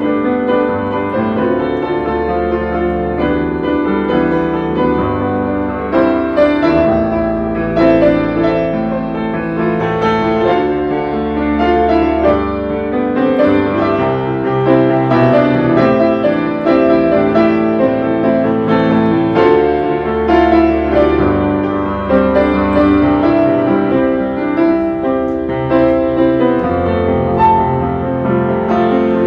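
Background piano music, a steady flow of notes over sustained bass tones.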